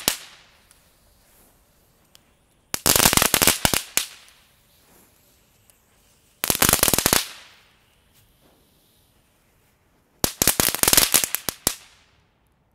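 Vulcan 'Crackling Astronaut' F1 ground firework crackling in three separate bursts of rapid cracks, each lasting about a second and a few seconds apart. The tail of an earlier burst dies away at the start.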